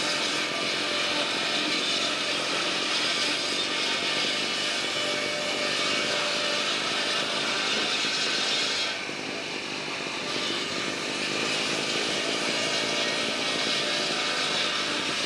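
Steady din of pallet mill machinery running: saws and board conveyors going together. About nine seconds in, the higher hiss drops away for a second or so, then comes back.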